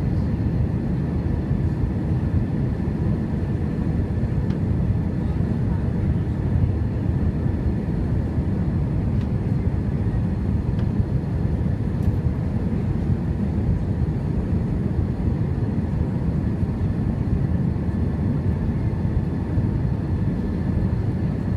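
Steady low roar inside the cabin of an Airbus A321 on approach: engine and airflow noise heard from a window seat, with a faint steady whine above it.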